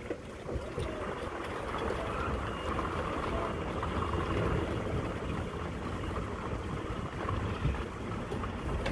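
Fifth-wheel trailer's slide-out rooms retracting: the slide mechanism runs with a steady mechanical drone, a little louder in the middle.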